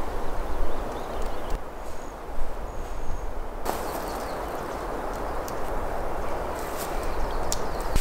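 Outdoor ambience: a steady rushing hiss over a low rumble, with a few faint clicks about seven seconds in.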